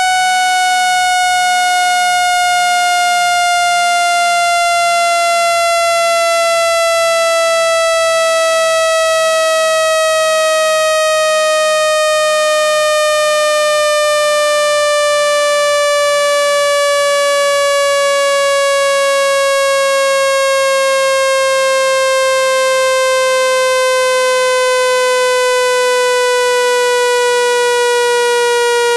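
Loud, buzzy electronic test tone slowly falling in pitch, played as a speaker-cleaning sound to shake water and dust out of a phone speaker.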